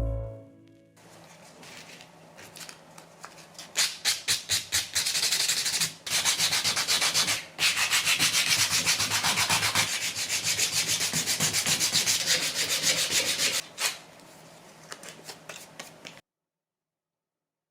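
Walnut being hand-sanded, sandpaper rubbed back and forth in quick, even strokes. The strokes start faint, turn loud with a couple of short breaks, fade, and then cut off suddenly near the end.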